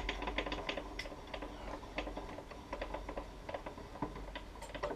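Table saw's blade-height mechanism being cranked, the blade rising with a rapid, irregular run of light clicks and ticks.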